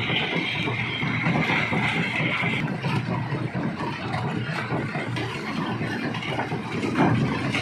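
Rock crusher at work in a quarry plant: a steady machine rumble full of irregular clatter and knocks of stone being broken. A higher hiss over it cuts off about two and a half seconds in.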